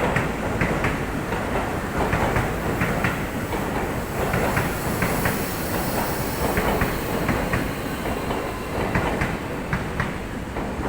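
Electric commuter train on the Seibu Ikebukuro Line passing at speed, its wheels clattering over rail joints in a run of sharp clacks over a steady rumble.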